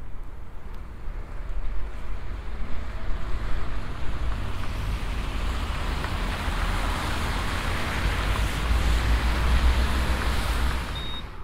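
Motor vehicle passing in street traffic: its tyre and road noise swells over several seconds, then falls away sharply near the end, over a steady low rumble.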